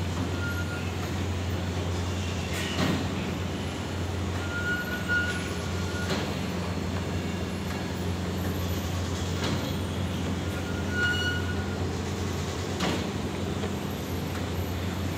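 Automatic roti-making machine running: a steady low motor hum with a sharp knock about every three and a half seconds and a few brief high squeaks.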